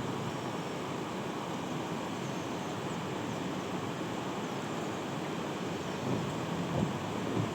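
Steady rushing of a mountain stream: an even, continuous water noise with no breaks, with a few slightly louder surges near the end.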